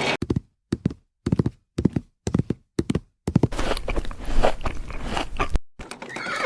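A run of about seven short thuds, roughly two a second with silence between them, followed by a couple of seconds of denser crunching and scraping.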